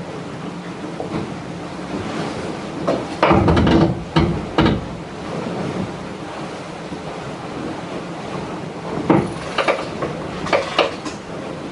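Water rushing and splashing against a racing sailboat's hull, with wind on the microphone. Louder splashes come about three to five seconds in and again near the end.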